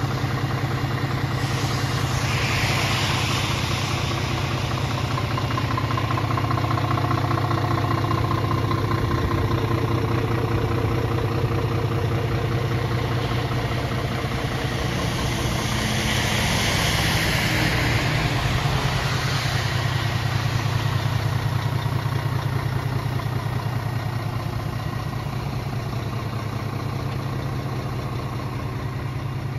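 Scania R500 truck's six-cylinder diesel engine idling steadily, a low even hum with a fine regular pulse. A hiss swells and fades twice over it, once early and again about halfway through.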